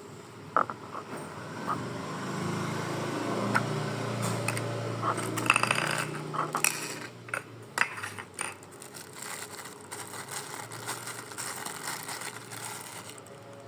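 Small metal sewing-machine parts clicking and scraping as the rotary hook is handled and fitted, with sharp metallic clicks scattered throughout. A low hum sits under the clicks through the first half.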